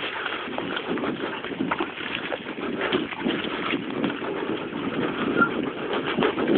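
Huskies running in harness ahead of a dog scooter on a dirt trail: a busy patter of paw falls mixed with the scooter's wheels rolling and rattling over the rough ground.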